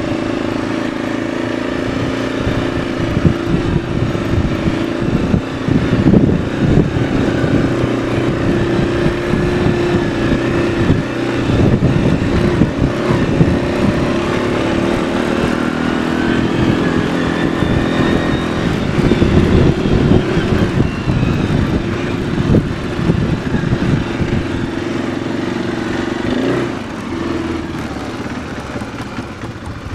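Arctic Cat 500 ATV's single-cylinder four-stroke engine running steadily, its pitch rising and falling a little, with uneven rumbling on the microphone through the middle.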